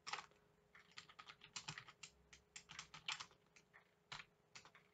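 Typing on a computer keyboard: faint, irregular runs of key clicks with short pauses between them.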